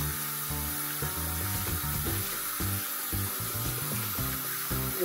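Background music with sustained, shifting notes over the steady hiss of a bathroom tap running into a sink, with water splashing as a puppy is rinsed by hand.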